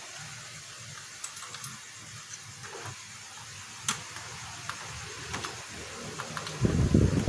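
Faint, scattered small clicks and taps of projector parts being handled and fitted back together, with one sharper click about four seconds in, over a low steady hum. Louder rustling handling noise starts near the end.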